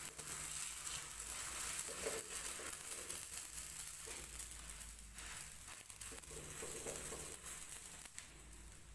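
Desi ghee sizzling under a kulcha pressed onto a hot tawa, a steady crackling hiss that fades toward the end.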